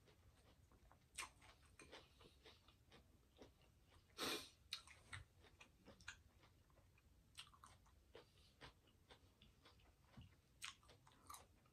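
Faint, close-miked chewing of a mouthful of salad with the mouth closed: scattered soft crunches and mouth clicks, with one louder crunch about four seconds in.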